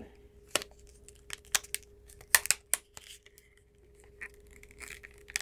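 Tightly sealed packaging of cream foundation refills being pried and torn open: scattered small crinkles and sharp clicks.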